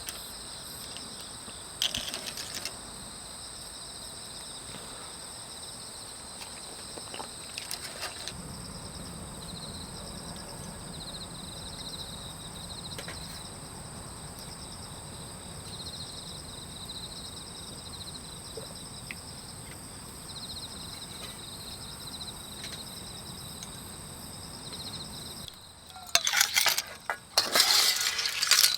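Insects, crickets and the like, trilling steadily in a high pulsing chorus. A low steady hum joins about a third of the way in and stops shortly before the end. Near the end come a few loud, rough noises close to the microphone.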